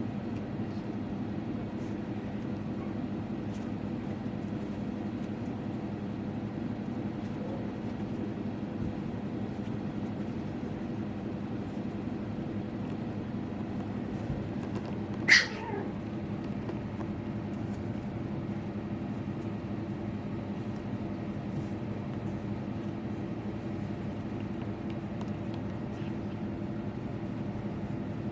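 A Pomeranian puppy gives one short, high-pitched yelp that falls in pitch, about halfway through, over a steady low hum.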